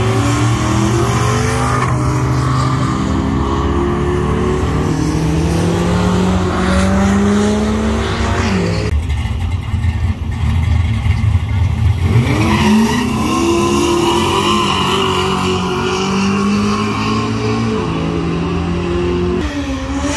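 Drag racing cars at the start line: engines revving hard through burnouts with tyres squealing. One long climbing rev cuts off abruptly about nine seconds in, and a second high-revving stretch follows from about twelve seconds in until near the end.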